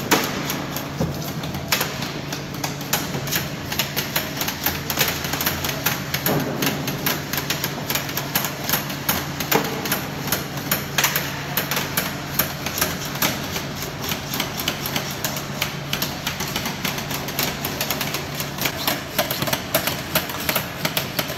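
Many hands scraping the skins off red carrots with metal blades on a metal table: a dense, irregular clatter of quick scraping strokes and clicks. A low steady hum runs underneath.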